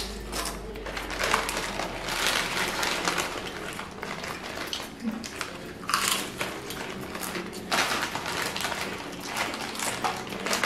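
Lay's potato chips crunching as they are chewed, mixed with the crinkling of the foil chip packets being handled, in irregular bursts.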